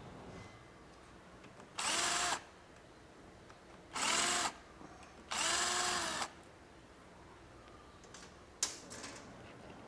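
Power drill-driver spinning up and down in three short bursts, removing the bolts of a motorcycle's clutch cover. A sharp metallic click follows near the end.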